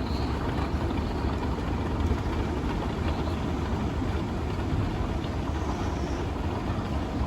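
An escalator running: a steady, even low rumble of machinery with a hiss of noise over it, starting suddenly just before and holding unchanged.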